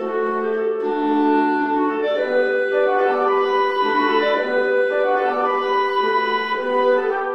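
Instrumental theme music: a melody of held notes over sustained accompaniment.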